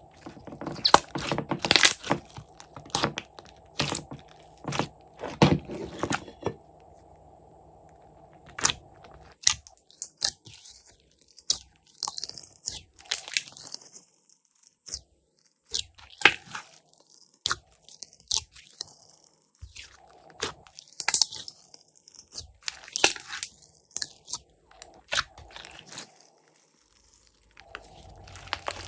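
Glossy slime being pressed, kneaded and squeezed by hand, making irregular crackling clicks and pops in quick clusters with short pauses between.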